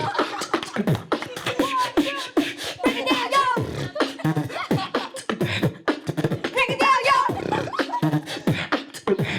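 Solo human beatboxing: a fast run of percussive mouth sounds, kick, snare and hi-hat style clicks, mixed with short gliding pitched vocal sounds.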